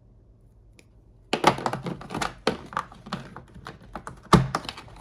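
Small metal pliers being handled, a rapid irregular run of clicks and knocks starting about a second and a half in, with the loudest knock near the end.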